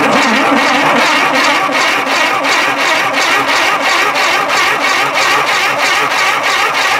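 Tera Jet's engine turning over on its electric starter, cranking steadily with a regular beat a few times a second but not catching: it has no spark.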